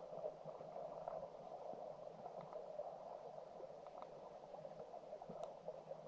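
Muffled, steady rush of stream water heard from underwater, with a few faint clicks.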